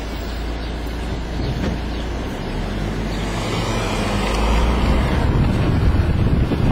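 Car driving along a street, wind rushing over the microphone from outside the car window along with road and engine rumble; the rush grows louder in the second half.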